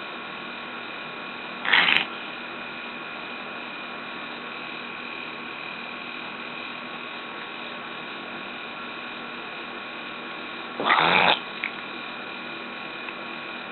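A pet cat coughing: two short, harsh hacking coughs about nine seconds apart, over a steady faint background hum.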